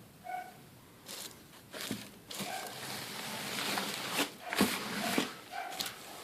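Packaging being handled during unboxing: crackling, rustling noise with sharp clicks, loudest a little past the middle. Short, high-pitched cries repeat several times between.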